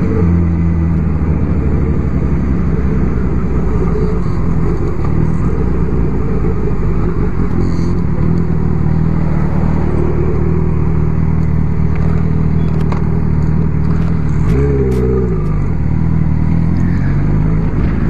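Honda CB1000R's inline-four engine running steadily under the rider while cruising through traffic. About 15 seconds in, the engine note drops sharply and then picks up again.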